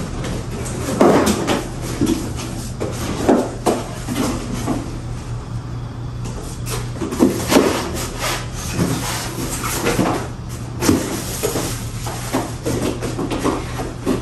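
Irregular knocks and clatter over a steady low hum.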